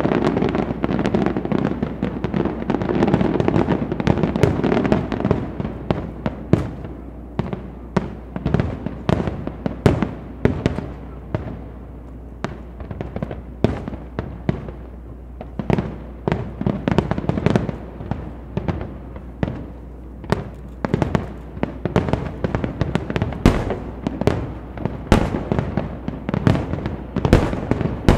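Aerial firework shells bursting in a rapid barrage. For the first several seconds the bangs run together into a continuous rumble, then separate sharp bangs follow one after another, several a second.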